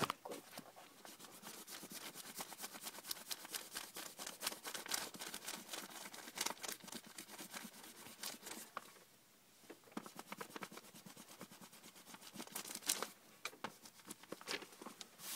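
Rubber eraser scrubbed rapidly back and forth on paper, erasing pencil lines, in quick scratchy strokes with a short pause about nine seconds in.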